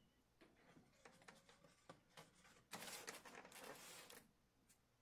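Faint handling sounds of a weaver working a wooden hand loom: light clicks and taps as wool is laid into the warp, then a longer brushing, rustling sound about three seconds in as the beater bar is handled.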